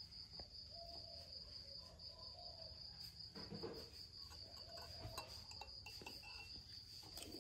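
Near silence, with a faint, steady high-pitched insect trill throughout and a few soft, faint clicks.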